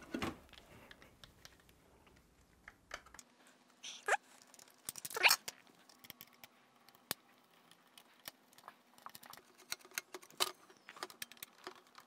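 A hand screwdriver turning out small screws from an aluminium window-mount bracket, with scattered light clicks and taps of metal on metal. A louder knock comes about four seconds in and another about a second later.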